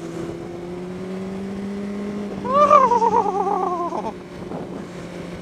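Honda CBR600RR inline-four engine running under way, its steady note rising slightly as it pulls. About two and a half seconds in, a person's long wavering moan slowly falls in pitch over it for about a second and a half.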